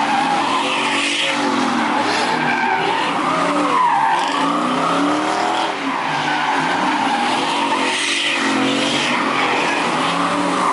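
A car engine revving up and down over and over while its tyres squeal and skid, a car spinning its wheels on pavement.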